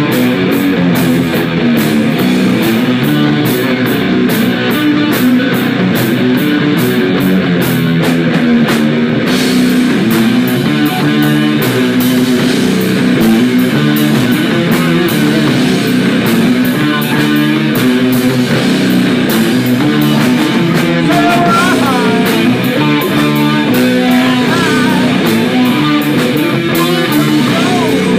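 Live rock band playing loud: distorted electric guitars over a drum kit. The fast, even drumbeat changes about nine seconds in.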